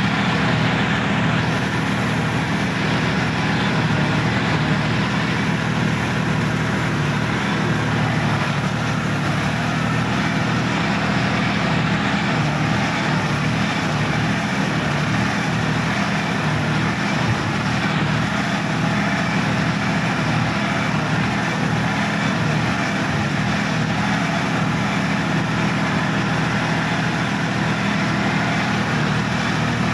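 Sonalika DI-50 RX tractor's diesel engine running at a steady speed, heard from the driver's seat as the tractor works through wet paddy mud.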